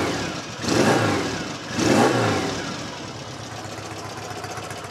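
1973 Norton Commando 850 Mk2's 828cc parallel-twin engine, revved in three quick blips of the throttle, then settling back to a steady tickover about two seconds in.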